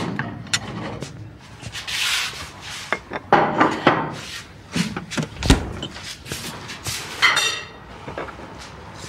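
Kitchen handling sounds: a refrigerator door opened and shut, a plate set down on a table, and crockery knocking and clinking, with a heavy thud about halfway through and a clatter a little later.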